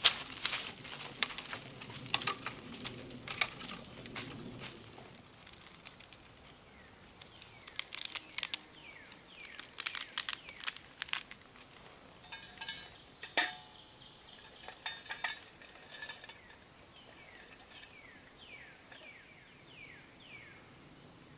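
Dry twigs snapping by hand in a quick run of sharp cracks, then scattered cracks and a single metallic clink with a short ring from a small metal camp stove about thirteen seconds in. A bird calls in quick repeated descending whistles near the end.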